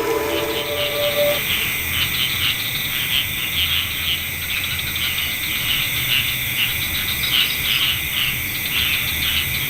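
Chorus of crickets and other insects: dense, pulsing chirps over a steady high-pitched trill. The last notes of music end about a second in.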